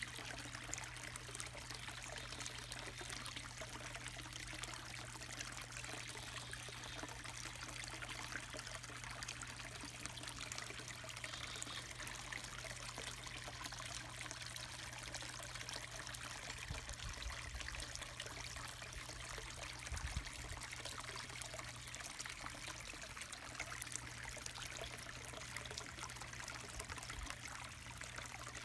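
Water trickling steadily into a garden pond, with a couple of low bumps a little past the halfway point.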